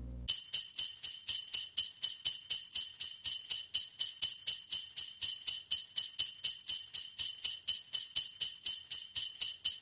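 Sleigh bells shaken in a steady rhythm, about four shakes a second, with no other instruments.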